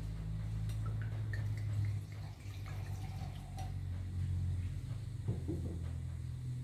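Rosé wine poured from a glass bottle into a wine glass, over a steady low hum. The bottle is set down on a wooden table about five seconds in.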